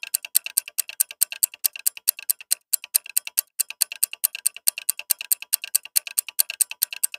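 Rapid, even clock-like ticking, a countdown-timer sound effect that plays while the quiz waits for an answer.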